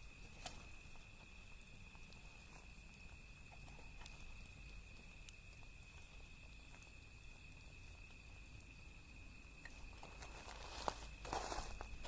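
Small wood fire burning quietly, with a few sparse crackles and pops, then rustling and shuffling near the end.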